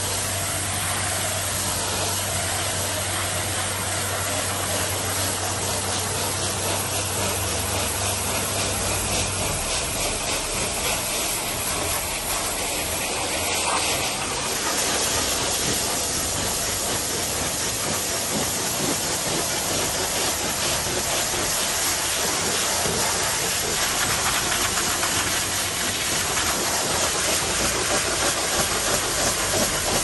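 High-pressure water jets from a truck-wash nozzle arm blasting the underside of a cement mixer truck: a steady, loud hiss of spray. A low steady hum runs underneath for the first third and then stops.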